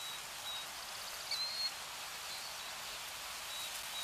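Steady rush of flowing river water with a few short, high bird chirps over it, the clearest about a second and a half in.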